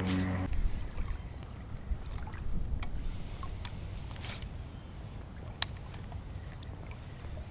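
Water sloshing and splashing around the legs of someone wading through shallow saltwater, with scattered small splashes and clicks over a low wind rumble on the microphone.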